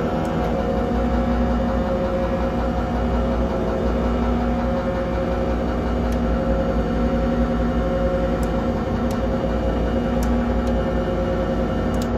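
Buchla 200 modular synthesizer sounding a steady, dense wall of noisy drone with held low tones underneath, a patch built to evoke black metal. A few faint clicks sit over it.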